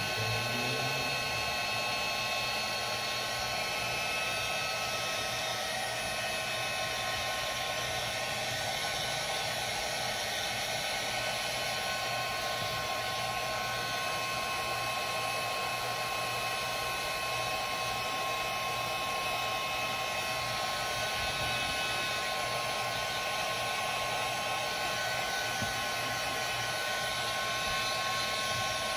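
Heat gun running steadily, blowing hot air with a rushing noise and a few steady whining tones from its fan, smoothing the inside of a paraffin wax lantern.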